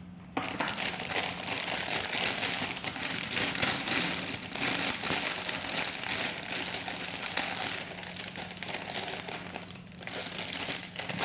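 Thin plastic sheet from a laptop hard-drive mounting kit crinkling and crackling continuously as it is handled. It starts about half a second in and eases briefly near ten seconds.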